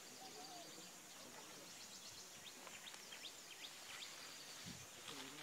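Quiet rural ambience: many short, high bird chirps scattered throughout over a steady high insect drone, with faint distant voices near the start and end.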